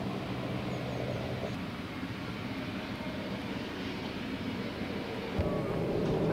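An engine running steadily with a low hum. About five seconds in there is a single knock, and the running noise grows louder.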